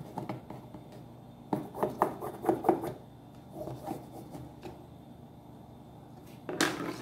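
Pencil scratching on fabric as a line is drawn along a wooden ruler, with a cluster of sharp clicks and knocks in the middle and a louder rustle near the end.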